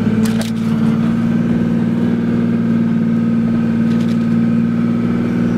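Toyota Land Cruiser 60 Series engine running at a steady pitch, heard from inside the cabin, as it pulls a camper trailer through soft sand where the wheels are digging in. A couple of brief rattles sound about half a second in and again near four seconds.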